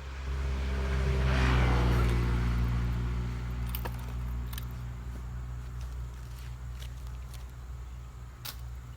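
Chainsaw engine idling steadily at a low, even pitch, with a louder rushing noise swelling over it between about one and three seconds in, and a few sharp clicks later on.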